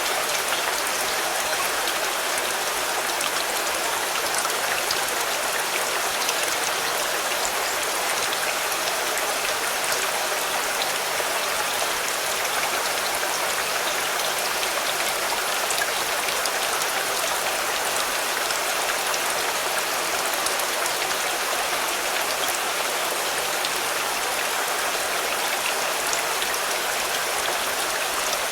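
Steady rain falling on a car, a continuous hiss with many small drop taps throughout.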